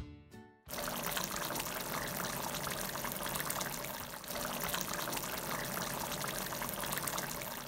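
Chicken in masala gravy bubbling and sizzling hard in an iron kadai as it is boiled down to reduce, a steady crackling hiss that starts suddenly about a second in.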